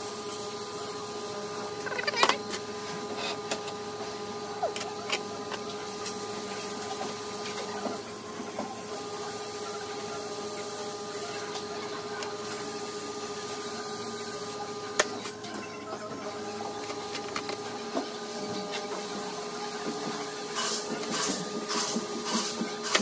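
A steady machine hum holds one fixed pitch throughout. Over it come scattered metallic clicks and knocks of transmission parts being handled: a sharp knock about two seconds in, another around fifteen seconds, and quicker clicking near the end.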